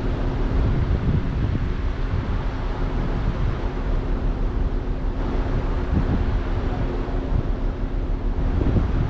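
Low steady rumble of a car, heard from inside the cabin, with a faint steady hum that stops near the end.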